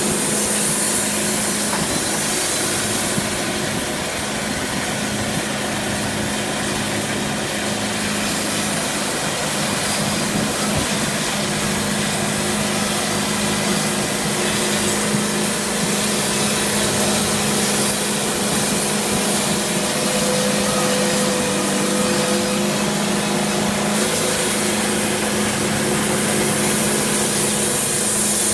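Sawmill machinery running: a loud, steady machine hum under a high hiss that swells and fades a few times.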